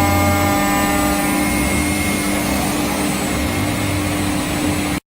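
CNC router running, a steady machine noise with a held spindle whine, cutting off suddenly near the end.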